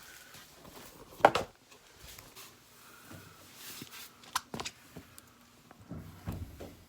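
Handling knocks and bumps: one loud sharp knock about a second in, then several lighter knocks and some rustling.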